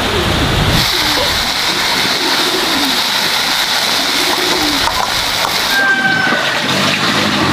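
Steady rain, an even hiss of falling water, with a brief high chirp about six seconds in.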